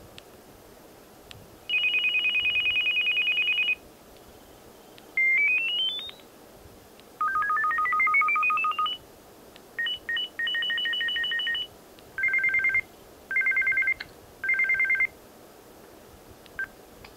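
Samsung SCH-A650 flip phone's built-in 'Bell' ringtones previewed one after another through its small speaker as each is highlighted in the menu. Five short electronic rings play in turn: a two-tone trill, a quick rising chirp, a longer rising stepped sweep, a stuttering two-tone ring, and three short trilling bursts.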